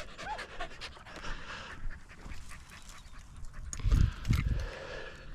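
Hunting dog panting, with small crackles throughout and two low thumps about four seconds in.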